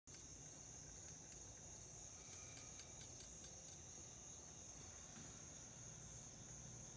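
Faint, steady high-pitched trill of crickets, unbroken throughout, with a few soft clicks between one and four seconds in.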